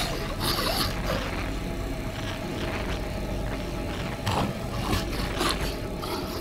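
Sound-designed alien creature voice: scattered wet clicks and short squelchy chirps, subtitled as 'One last chance for mankind', over a steady low hum.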